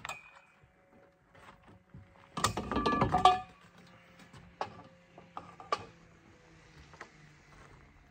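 Metal tent-frame poles clanking as they are handled and fitted together: a clatter of knocks with a metallic ring about two and a half seconds in, then a few lighter single clicks. Under it, a faint steady engine hum from passing snowmobiles.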